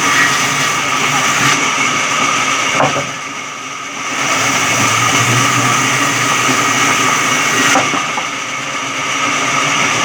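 Electric sawmill running with a steady, high machine whine over a noisy rush. The sound drops off briefly twice, about three seconds in and again near the end.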